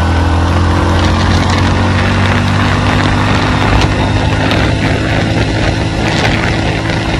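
Motorcycle engine running steadily at cruising speed, with wind and road noise rushing past.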